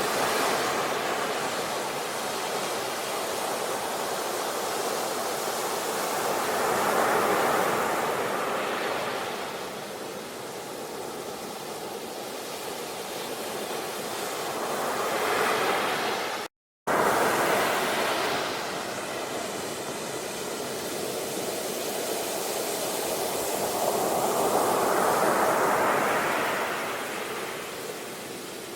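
Ocean surf: waves rushing in and drawing back in slow swells, each surge rising and falling over several seconds. The sound cuts out for a moment just past halfway, then resumes.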